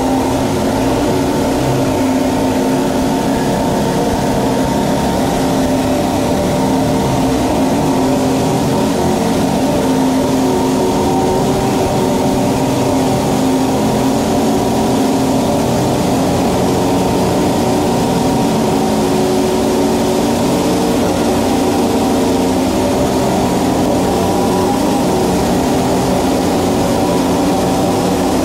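Dual-sport motorcycle engine running steadily at low revs inside a corrugated steel culvert pipe.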